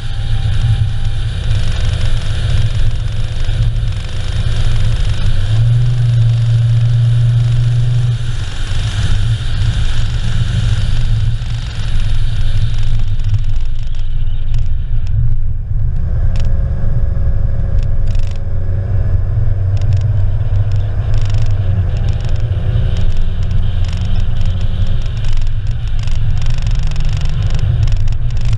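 Car driving on an asphalt road: a loud, steady low rumble of engine and tyres. About halfway through a high hiss drops away and the engine's tone comes forward, with scattered ticks over the rest.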